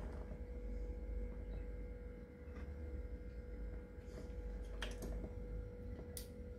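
A steady humming tone over a low rumble, with two faint clicks in the second half.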